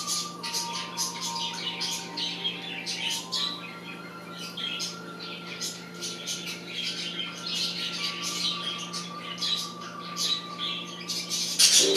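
Two budgerigars chattering: a rapid, continuous run of short high chirps and calls.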